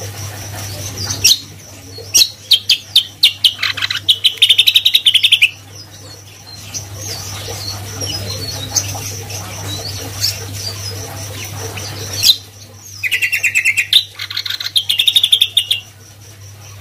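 Cucak kombo (greater green leafbird) singing two bursts of song, each a run of quick sharp notes that speeds into a rapid high trill. The first burst starts a little over a second in, the second about twelve seconds in. A faint steady high tone and a low hum run underneath.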